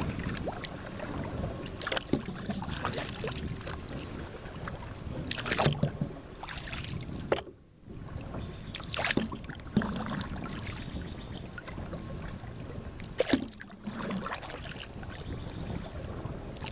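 Water lapping and splashing around a small fishing boat, with scattered knocks and clicks of gear being handled. The sound drops out briefly about seven and a half seconds in.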